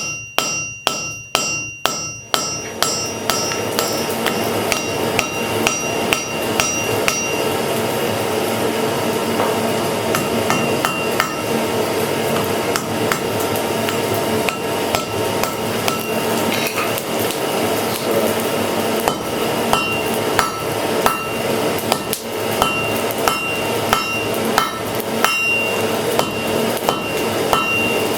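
Blacksmith's hammer striking hot iron bar stock on an anvil, about two blows a second with a metallic ring, upsetting the end of an old pry bar. From a few seconds in, a steady rushing noise runs under the continuing blows.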